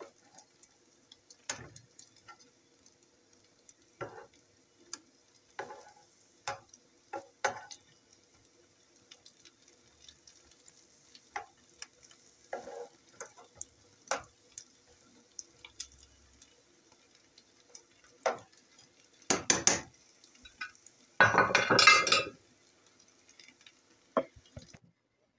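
Köfte sizzling in shallow oil in a frying pan, with repeated clinks and knocks of a utensil against the pan as the cooked meatballs are lifted out. A louder clatter of pan and dish comes about three quarters of the way through, and the sizzling stops just before the end.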